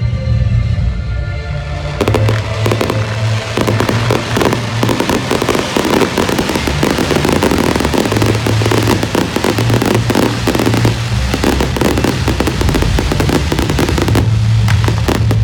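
Fireworks going off in a dense, rapid barrage of bangs and crackles, starting about two seconds in and thinning out near the end, over steady music.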